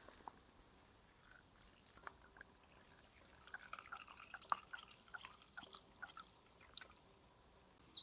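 Alcohol fuel trickling from a fuel bottle's spout into a Trangia spirit burner: a faint run of small drips and splashes from about three and a half seconds in to near the end.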